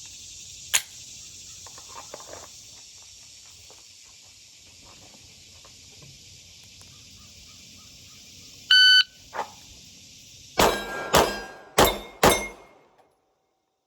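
A shot-timer beep, then four pistol shots from a 9 mm Glock 45 about half a second apart in a draw-and-transition drill, each with a ringing tail. Crickets buzz steadily underneath until the sound cuts off suddenly just after the last shot.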